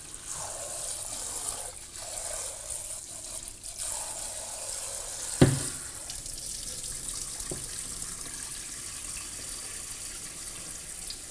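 Kitchen tap running into a bowl of rice as the rice is rinsed, a steady splashing of water. A single sharp knock about five and a half seconds in.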